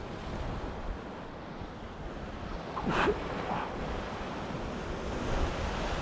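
Surf breaking and washing against a rocky shoreline, with wind buffeting the microphone. A short rising sound stands out briefly about halfway through.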